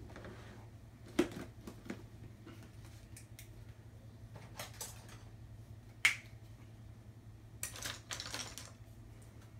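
Scattered clicks and knocks of plastic paint tubes and bottles being handled and rummaged through in a plastic storage box, with one sharp, louder click about six seconds in and a short run of clatter near the end.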